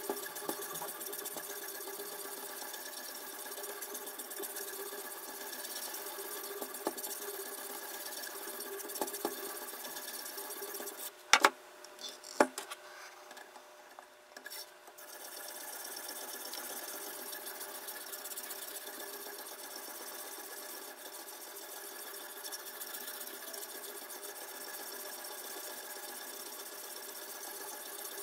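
Sharpening stone on a guided-rod knife sharpener being stroked quickly along the edge of a clamped steel kitchen knife: a steady scraping with a ringing from the blade. The scraping stops for a few seconds around the middle, where two sharp clicks come, then carries on.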